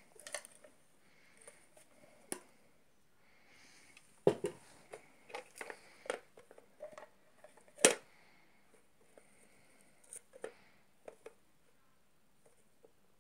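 Small toy bins being picked up and handled by hand: scattered clicks and knocks, with the loudest knocks about four and eight seconds in.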